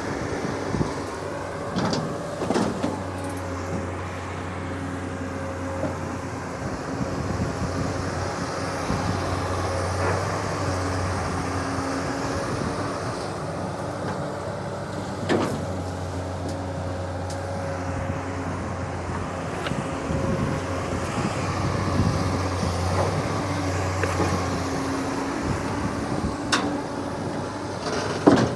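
Excavator's diesel engine running steadily as it digs and shifts mud, its hum rising and falling slightly with the work, with a few sharp knocks about 2, 15 and 26 seconds in.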